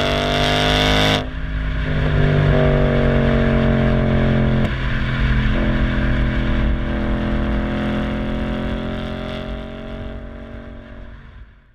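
Audi S5 4.2 V8 running through a non-resonated stainless-steel catback exhaust, pulling under acceleration with breaks in the note about a second in and again about four and a half seconds in. The note then eases off and gradually dies away to silence near the end.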